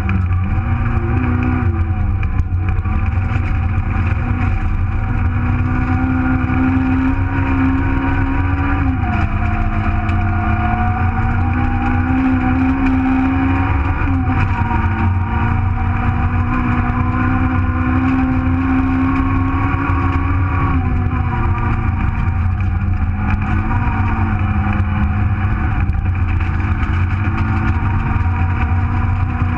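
Nissan Micra Super1000 rally car's 1.4-litre engine, heard from inside the cabin at full stage pace. Its pitch climbs under acceleration and drops back sharply at each gear change, several times over, above a steady low rumble.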